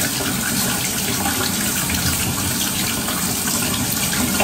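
Tap water running steadily into a bathtub, heard over a video call.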